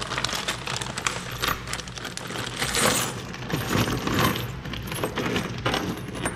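Loose steel bolts, nuts and washers clinking and jingling as gloved hands rummage through a pile of hardware, with a plastic bag of parts crinkling, loudest a little after the middle.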